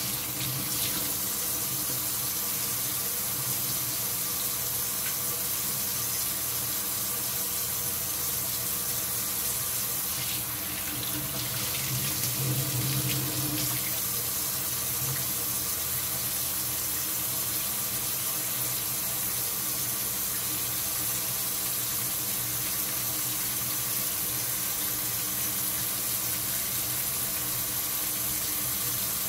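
Kitchen faucet running in a steady stream into a stainless steel sink, the water splashing over a plastic colander of seitan dough being rinsed by hand.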